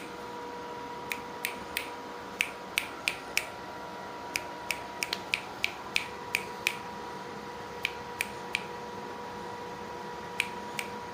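Sharp snapping clicks, mostly in quick runs of three or four with pauses between, over a steady electrical hum.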